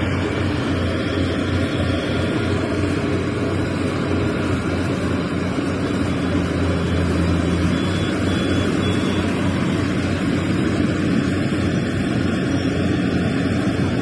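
Small rice combine harvester running steadily as it cuts and threshes rice, its engine and machinery making a loud, even drone with no let-up.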